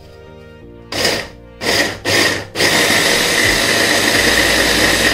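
Electric hand blender with a chopper bowl attachment grinding onion, tomato and ginger-garlic paste: three short pulses starting about a second in, then running continuously with a steady whine.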